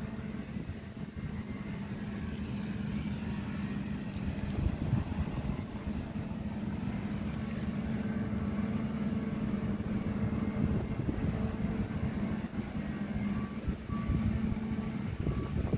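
Diesel farm machinery running steadily, a low engine drone: a Zetor tractor close by with a combine harvester working behind it.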